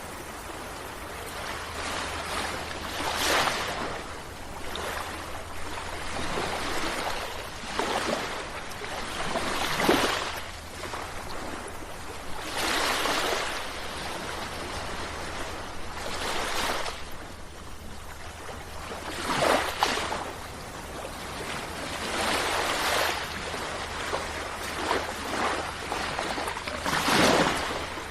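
Sea waves breaking and washing up a shore, one surge of surf every few seconds over a continuous wash.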